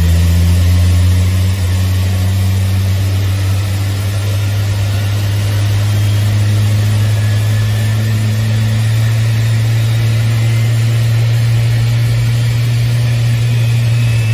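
Large airliner turbofan engine running on the ground at low power: a steady deep hum with a faint high whine above it that slowly rises.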